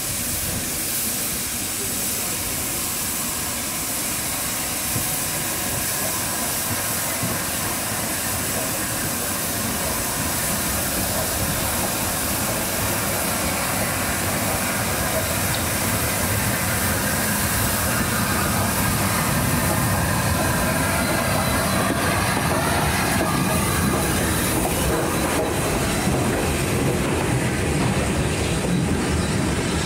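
Rebuilt Bulleid Battle of Britain class steam locomotive arriving slowly with steam hissing, then its coaches rolling past with wheels clicking over rail joints; the rumble grows louder from about halfway.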